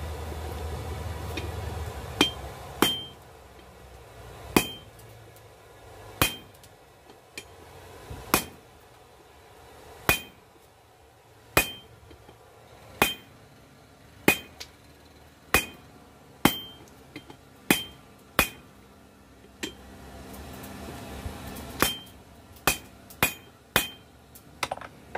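Blacksmith's hammer striking hot spring steel on an anvil, about one blow a second and quicker near the end, each blow with a short metallic ring. The smith is forging a double-sided offset into a coil-spring knife blank.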